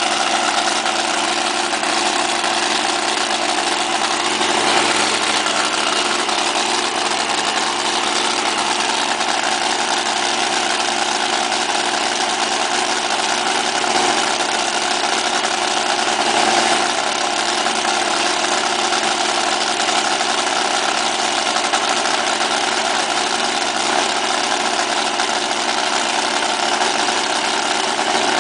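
Drag boat engine of a top alcohol flat idling steadily during a run-up, a loud even note that swells slightly a few times.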